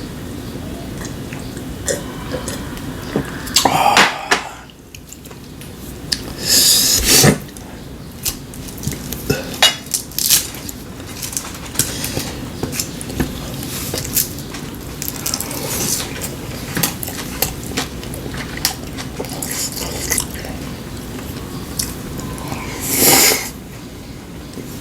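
Eating utensils clicking and clinking against bowls and plates during a meal, with three louder, longer noises about four, seven and twenty-three seconds in.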